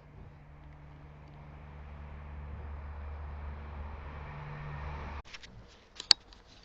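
A steady low engine-like hum under a rush of noise that swells and then cuts off suddenly about five seconds in. A few faint clicks follow, then one sharp, loud crack about six seconds in.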